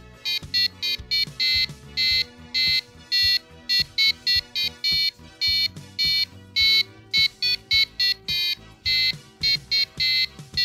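Piezo buzzer on a Raspberry Pi Pico breadboard kit playing a Christmas melody as a quick run of short, shrill beeping notes, about two to three a second. Quieter low background music runs underneath.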